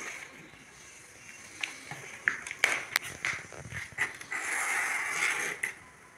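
A plywood try square being set down and shifted on a plywood sheet: a few light wooden taps and knocks, then a scratchy rub of about a second as it is slid or marked along the board.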